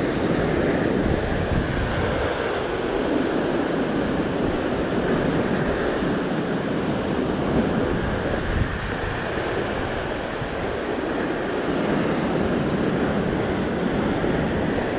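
Ocean swell breaking and washing over a rock ledge, a steady rush of white water, with wind rumbling on the microphone.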